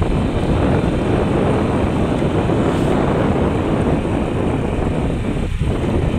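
Steady wind rush on the microphone mixed with the running of a moving motorcycle.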